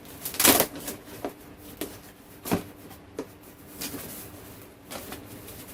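Knocks, taps and scrapes of a boxed TV antenna's cardboard packaging and parts being handled and unpacked. The loudest knock comes about half a second in, and lighter ones follow every half second to a second.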